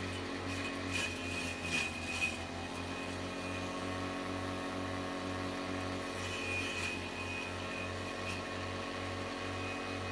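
A vegetable chopper driven by an electric water-pump motor, running steadily with a hum and whir. A few sharp knocks come through about a second or two in and again later on.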